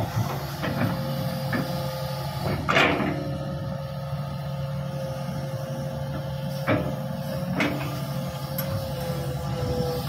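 Heavy diesel engines of a Hitachi 200 excavator and a Caterpillar D6G bulldozer running steadily under a steady higher hum, with about five sharp knocks, the loudest about three seconds in.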